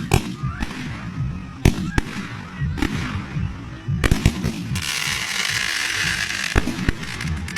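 Fireworks going off: scattered sharp bangs, a quick cluster of them about four seconds in, then a steady hiss for about a second and a half.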